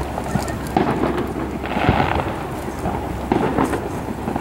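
Fireworks shells bursting over a river: several deep booms with echoing rumble between them, the strongest about two seconds in.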